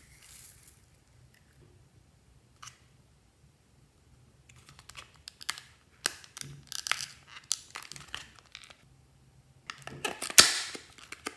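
A small cardboard cosmetics box is handled, with scattered clicks and scratches. Near the end its flap is torn open in a loud ripping burst, the loudest sound.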